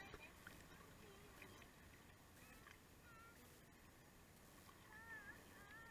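Near silence, with a few faint, short wavering calls about halfway through and again near the end.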